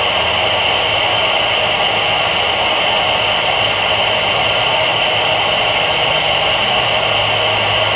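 AM CB radio on channel 22 putting out steady, loud static hiss through its speaker, with a faint low hum underneath.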